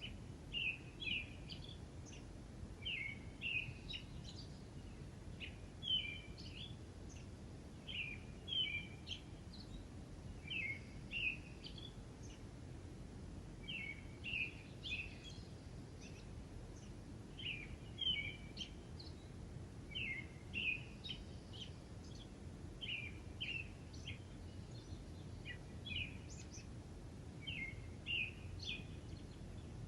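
Small songbirds chirping in short, quick phrases that repeat every two to three seconds, over a steady low background rumble.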